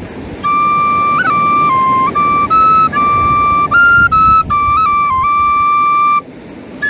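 Solo flute music: a slow melody of held notes stepping up and down in pitch, with a short pause near the end.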